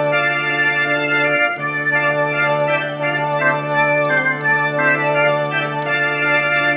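Theatre organ playing a Christmas carol: sustained chords and a moving melody over a held bass note, which breaks briefly about a second and a half in.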